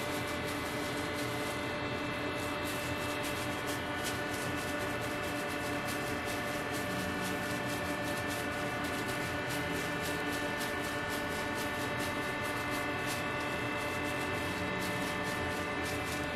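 Steady machine hum made of several held tones, with frequent small crinkles and clicks from a plastic food-handling glove as minced meat is pressed and shaped onto a flat metal kebab skewer.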